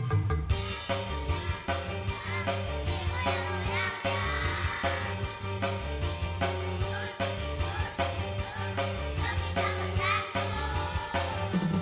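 Children's choir singing over an instrumental accompaniment with a steady beat and bass line.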